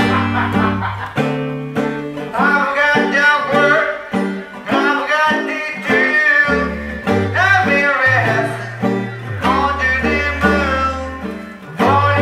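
Old-time swing song: a man sings through a handheld megaphone over strummed banjo chords and a bass clarinet playing long low notes.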